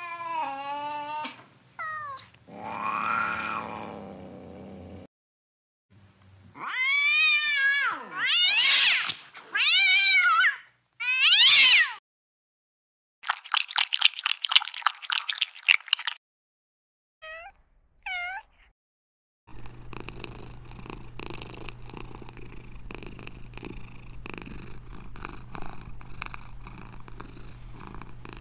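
A domestic cat's voice: a few meows, then four loud, drawn-out meows, each rising and falling. A harsh hiss follows, then two short chirps. From about two-thirds of the way in, the cat purrs steadily to the end.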